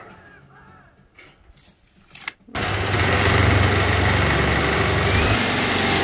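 Cordless drill driving a sheet-metal cutting attachment through a corrugated steel roofing panel: a loud, steady cutting clatter with a motor whine. It starts suddenly about two and a half seconds in, after a few light knocks.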